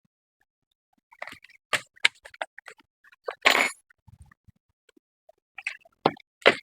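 Scattered sharp plastic clicks and taps, with a short scraping rustle about halfway through and two louder clicks near the end: hands working on the keyboard and its ribbon-cable connectors inside an opened Dell Latitude laptop.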